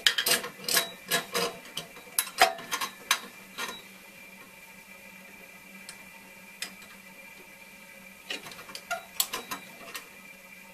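Pliers clicking and scraping against the end of a thin-wall stainless steel tube as it is flexed down. There is a quick run of sharp metallic clicks and taps over the first few seconds, a pause, and another cluster near the end, over a faint steady hum.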